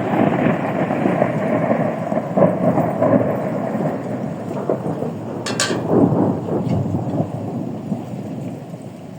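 A long rolling thunder rumble over steady rain, slowly dying away toward the end. A short sharp click is heard about five and a half seconds in.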